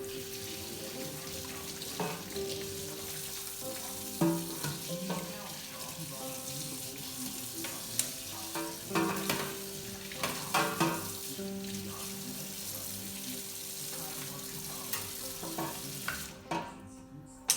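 A steady hiss of cleaning work on the humidifier's carrier bars, with several knocks and clinks of parts being handled, the strongest about four seconds in. Soft background music plays underneath.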